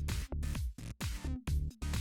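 Electronic dance music with a heavy beat and bass.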